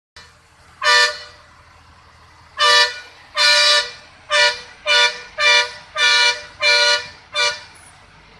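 Truck horn sounding nine blasts of a steady two-note chord, two spaced apart and then seven short ones in quick succession, to warn traffic round a hairpin bend.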